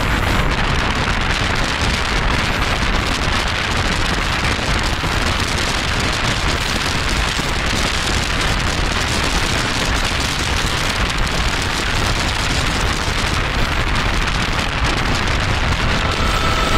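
Steady rushing wind and road noise from a car moving alongside the train, loud and even throughout. A faint high tone begins about a second before the end.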